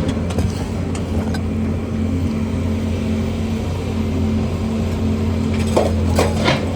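An engine running steadily at idle, with a few sharp knocks near the end.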